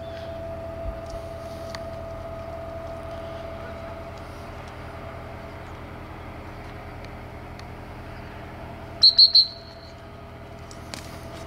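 Three short, sharp toots on a high-pitched dog whistle, close together about nine seconds in, over a steady low background rumble.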